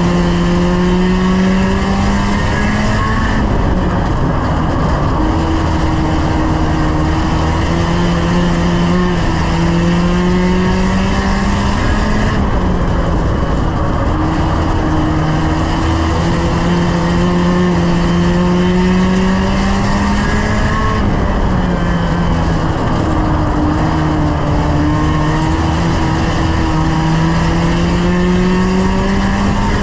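A 1-litre stock car's engine running hard while racing, heard from inside the stripped cockpit. The engine note climbs steadily for several seconds and then drops back, three times, as the car accelerates and lifts off.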